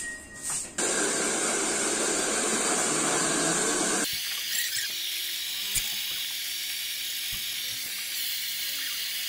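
Hand-held hair dryer blowing a steady rush of air while drying wet hair. About four seconds in, its sound turns thinner and higher.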